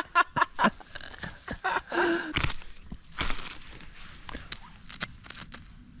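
Ferro rod scraped in a series of short, irregular strikes, throwing sparks onto a paper tissue to light tinder for a campfire.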